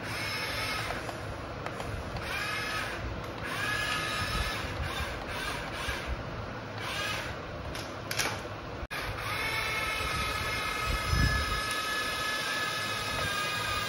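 Small electric gear motors of a toy radio-controlled excavator whining as it moves on its tracks and works its arm. The pitch rises and falls in short spurts at first, then holds steadier after about nine seconds.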